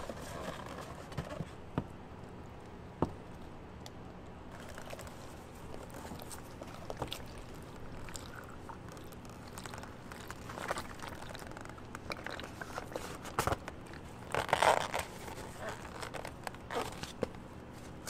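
Milk being poured from a carton into a plastic jug of powdered gelato base: soft crackling of foam, small knocks and crinkles of the carton, and a louder burst of sound about three-quarters of the way through.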